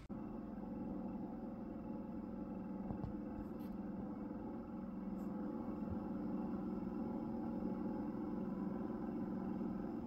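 Steady mechanical hum: a low pitched drone that holds level.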